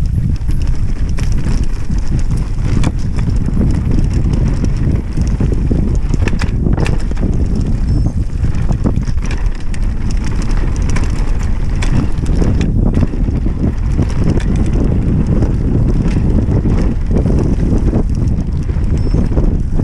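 Wind rushing over the camera's microphone as a mountain bike descends a dirt trail, with tyres rolling on dirt and frequent short rattles and knocks from the bike's chain and suspension over bumps.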